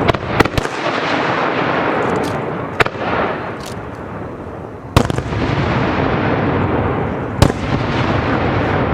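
Fireworks going off: about six sharp bangs at uneven intervals, over a continuous noisy wash between them.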